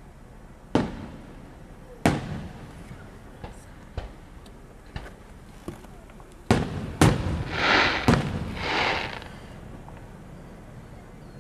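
Aerial fireworks shells bursting overhead: a string of sharp booms, about eight, coming thickest in the second half. Two short bursts of crackling follow the loudest booms.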